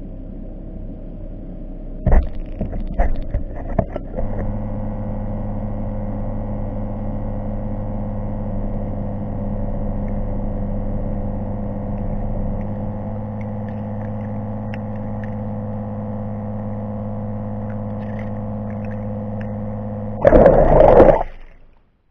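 Small motor running steadily underwater with a held, even hum, as from an underwater thruster propelling the camera. A few sharp clicks come about two to four seconds in, and a loud burst of rushing noise near the end, after which the sound cuts off.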